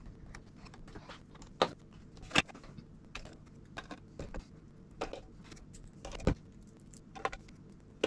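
Scattered small clicks and taps of hand tools and parts being handled on a Mac mini, with a few sharper knocks about one and a half, two and a half and six seconds in.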